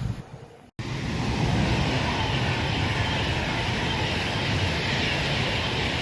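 Steady rushing and rumbling of a train running past at speed, with no horn. It starts abruptly just under a second in.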